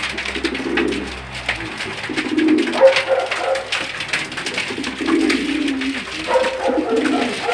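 Domestic pigeons cooing, several low coos one after another, over a steady patter of small ticks from beaks pecking at feed on a cardboard floor.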